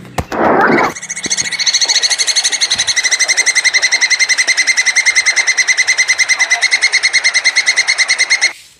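Plantain squirrel (coconut squirrel) giving its mating call: a brief harsh note, then a long fast chattering trill of about a dozen high-pitched pulses a second that stops abruptly near the end.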